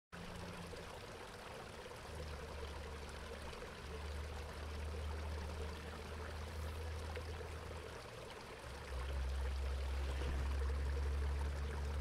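Water running out of a corrugated metal culvert pipe: a steady rush of flowing water. A low rumble comes and goes underneath and grows louder about nine seconds in.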